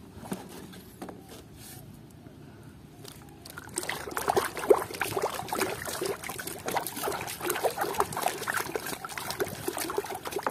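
Hands swishing and rinsing a toy in a tub of water: water sloshing and trickling, quiet at first with a few light knocks, then continuous irregular splashing from about four seconds in.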